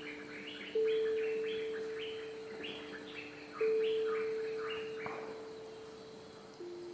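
A songbird singing a rapid run of repeated downward-sliding notes, stopping about five seconds in. Under it, low pure ringing tones at a few different pitches start suddenly every few seconds and fade slowly.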